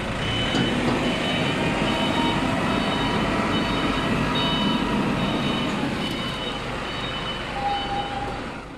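A vehicle engine running with a reversing alarm giving repeated short high beeps.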